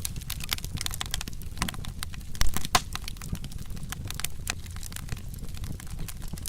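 Wood fire crackling, with irregular snaps and pops over a low steady rumble; one louder pop about two and a half seconds in.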